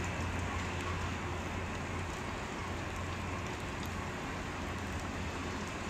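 Steady low rumble of a freight train's last double-stack container well cars rolling away on the rails, fading slowly.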